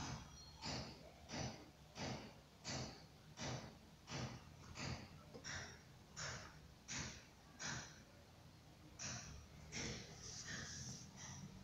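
A baby's noisy breathing: short breaths in a steady rhythm, about three every two seconds, breaking off briefly about eight seconds in.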